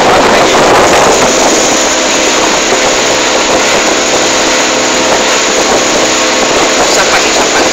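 Small fishing boat's engine running steadily under way, a constant hum with water rushing along the hull.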